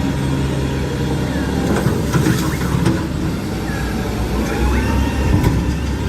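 Garbage truck engine running with a steady low rumble.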